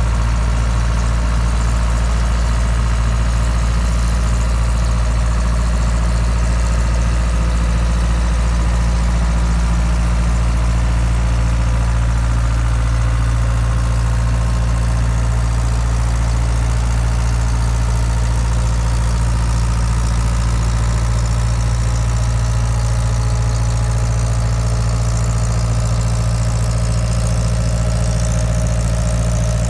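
Heavy diesel truck engine of a cement spreader tanker running at a steady low speed, a constant low drone with hiss above it and no revving, while the truck spreads dry cement on a dirt roadbed.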